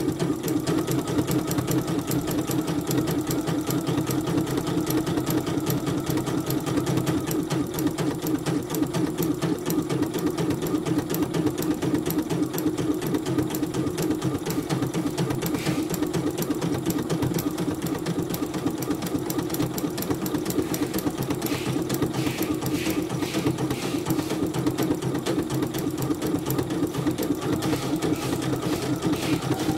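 Portable CNY computerized embroidery machine running steadily, its needle stitching rapidly through thick knit fabric.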